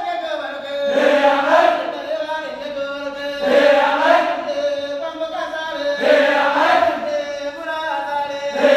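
Boys' school choir chanting a Gusii folk song for weddings in rhythmic unison, a short call-like phrase starting afresh about every two and a half seconds over a held note.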